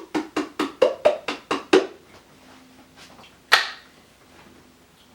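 A quick run of about ten sharp percussive hits, about four a second, then one more hit about a second and a half later.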